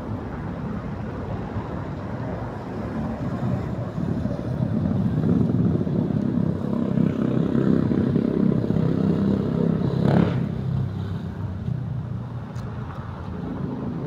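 A motor vehicle passing on the street: a low engine and road rumble that swells about four seconds in, holds for several seconds and fades after about ten seconds.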